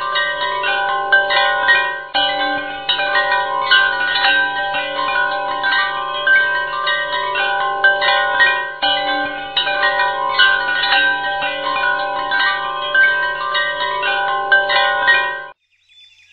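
Background music of ringing chime-like tones over a steady low drone, cutting off suddenly near the end.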